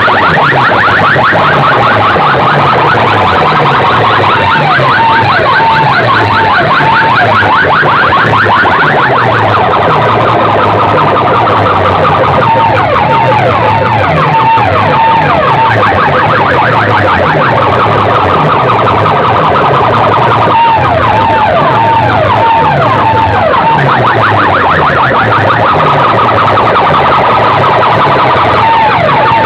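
Loudspeaker sound systems blasting warbling, alarm-like siren tones at full volume over a falling bass figure that repeats about twice a second.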